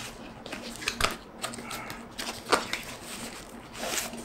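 Cardboard box and plastic packaging tray being handled as a mouse box is opened: a few short scrapes and rustles, the loudest about two and a half seconds in.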